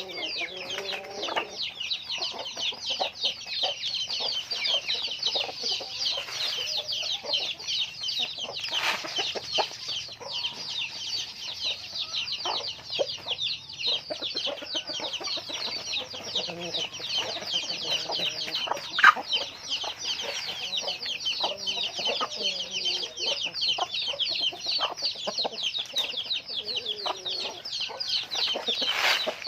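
A flock of chickens calling together: a dense, unbroken chorus of many high, quick peeps, with lower clucks now and then. A single sharp click stands out about two-thirds of the way through.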